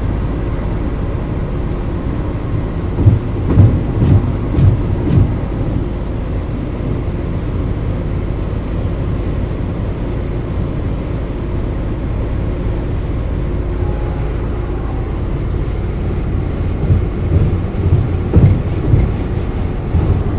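Steady low rumble of road and engine noise inside a car cruising at highway speed, with a cluster of thumps about three to five seconds in and again near the end.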